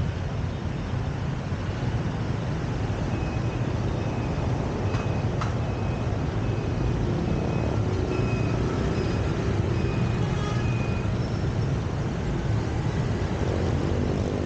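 Steady city street traffic noise from motorbikes and cars. A string of short high beeps repeats through the middle, and a vehicle engine draws nearer near the end.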